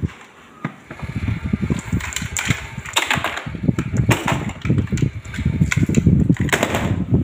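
Plastic toys rattling and clattering as they are handled and sorted, with several sharp clacks over a continuous rumbling rustle.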